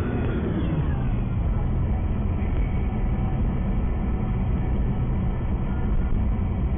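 Steady road and engine noise inside a car cruising at about 70 km/h, with a tone that slides down in pitch during the first second.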